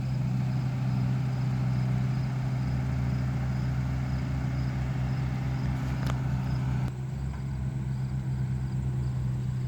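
Steady low hum of an idling engine, dropping a little in level about seven seconds in, with crickets chirping faintly and one sharp click about six seconds in.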